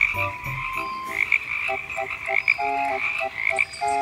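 Frog croaking: a run of short repeated calls, about two or three a second.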